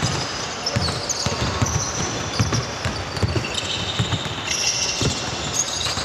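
A basketball being dribbled on a court floor, repeated thumps about two a second, with short high squeaks of sneakers on the court over them.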